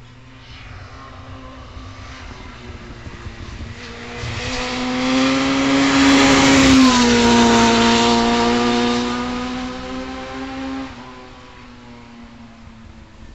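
1994 Honda CBR600F2 sport bike's inline-four engine, fitted with a Yoshimura RS3 exhaust, passing by at steady throttle through a curve. The engine grows louder as the bike approaches and drops in pitch as it goes past about seven seconds in, then fades away.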